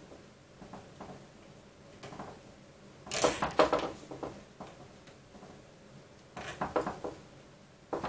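A nylon zip tie being pulled tight, its ratchet giving two short bursts of rapid clicking, one about three seconds in and another near the end, with faint handling taps between. The tie is cinching the printer's toothed belt back against itself.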